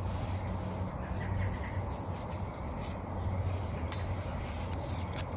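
Cardboard burning in a stainless steel double-wall biomass camping stove: a steady low rumble with a few faint crackles.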